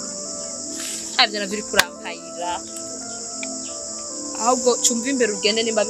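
Steady, high-pitched chorus of insects, unbroken throughout, with women's conversation over it.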